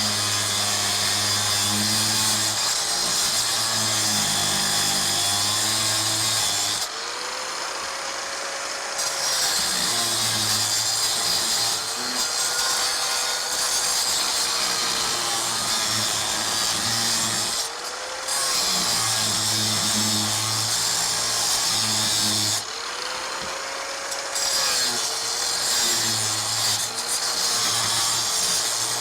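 Power saw cutting through the metal of a grinder pump motor, running steadily and easing off three times, its motor pitch dipping and rising again before it bites back in.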